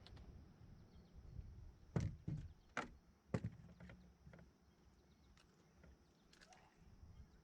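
A handful of sharp knocks and clicks about two to three and a half seconds in, then a few faint ticks, over a low rumble: gear being handled in a small fishing boat.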